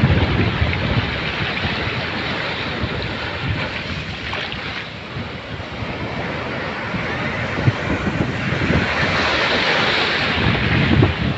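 Sea surf breaking and washing up a beach, with wind buffeting the microphone. The wash of a wave swells louder near the end.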